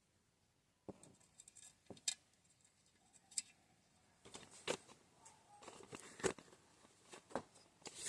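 Scattered light clicks and small rustling handling noises from hand work on small metal engine parts, about a dozen sharp ticks spread over several seconds.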